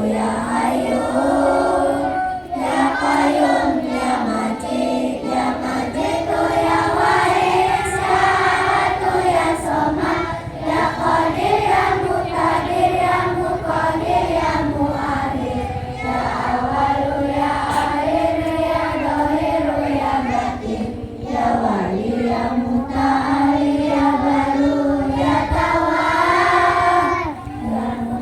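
A group of children singing together in unison, a sung prayer, the melody held steady with smooth rises and falls.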